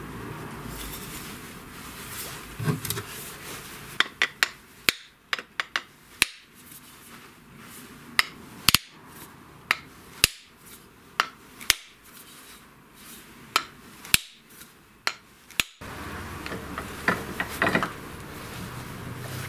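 A hammer knocked repeatedly against a wooden workbench to seat its head on a new handle: about twenty sharp knocks at uneven intervals. Lighter clicks and rattles follow near the end as the hammer is set into a steel bench vise.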